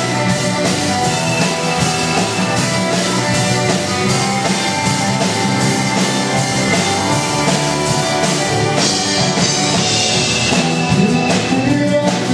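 Rock music with a drum kit keeping a steady beat under guitar.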